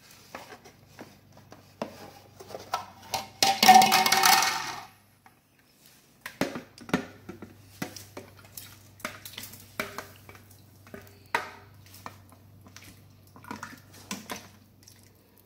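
A metal ladle and spoon clinking and scraping against a glass bowl and a stainless steel cooking pot as beef is spooned in and stirred, in scattered knocks, with a louder, longer clatter about four seconds in. A faint low hum runs underneath.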